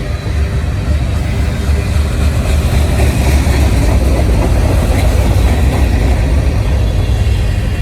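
Manifest freight train passing close by: a heavy low rumble with the rushing noise of wheels on rail, swelling to its loudest in the middle and easing slightly near the end.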